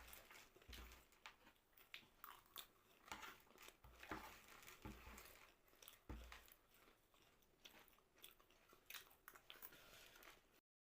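Quiet, close-up chewing and crunching of jhal muri, the spiced puffed-rice snack, in many short, irregular crunches, stopping abruptly near the end.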